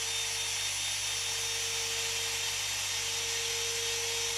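Compact router on a CNC machine spinning free at a steady speed before it starts cutting, a constant whine with hiss.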